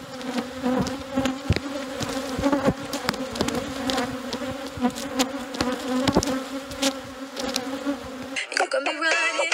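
Swarm of honeybees flying close around the microphone: a dense, steady buzz with many short, sharp ticks through it. Near the end it gives way to music with singing.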